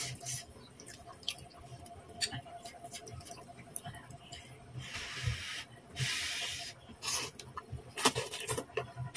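Close-up eating sounds: noodles slurped in two hissing draws about five and six seconds in, with small clicks of a plastic fork and spoon and wet mouth sounds around them.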